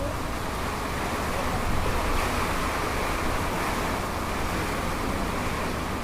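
Steady rush of heavy rain and wind in a thunderstorm, an even noise with no thunderclap or other distinct event.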